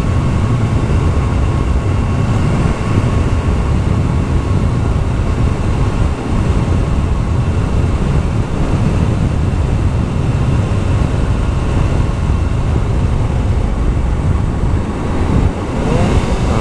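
Yamaha YZF-R6S sport bike's inline-four engine running steadily under way, largely buried in heavy wind rush on the microphone.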